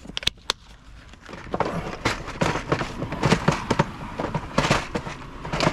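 A few sharp clicks, then a run of irregular rattling and clattering as a storage case of nuts and bolts is handled.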